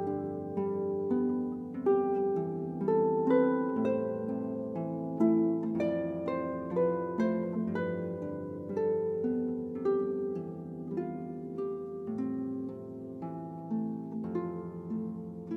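Harp playing a calm piece: a steady stream of plucked notes ringing over sustained low bass notes.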